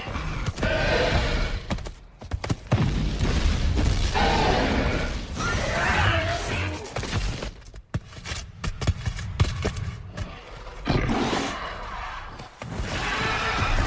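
Film sound effects of a dinosaur attack: drawn-out creature cries alternate with heavy thuds, booms and crashing, shattering impacts. The impacts cluster about two seconds in and again around eight to ten seconds.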